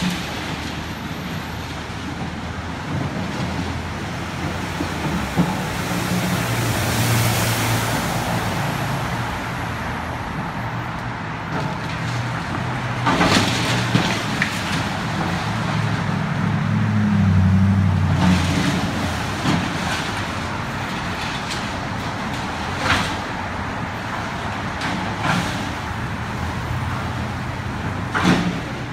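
Road traffic on a city street: cars driving past close by over a steady low engine rumble, with several sharp clanks and bangs, the loudest a little under halfway through and just before the end.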